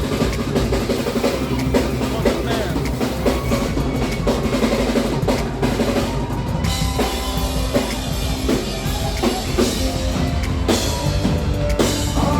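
Live band playing, with a drum kit prominent: bass drum and snare hits under sustained instrument tones.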